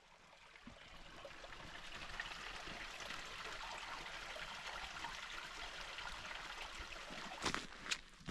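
Steady rush of running water, like a mountain stream. Two thumps near the end, likely footsteps.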